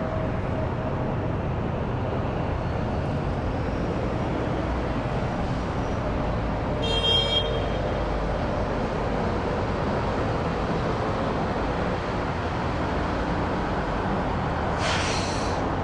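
Steady low rumble of a Boeing 777-300ER's GE90 jet engines in flight, heard from the ground at a distance. A brief high chirp cuts in about seven seconds in.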